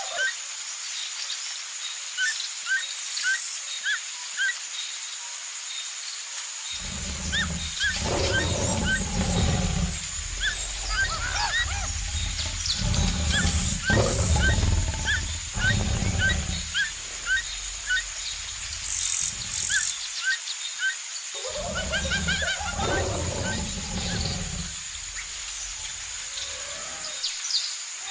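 Forest ambience sound effect: small birds chirping and a steady high insect drone throughout, joined by deep animal calls in two long stretches, from about seven seconds in to about seventeen and again from about twenty-one to twenty-seven seconds.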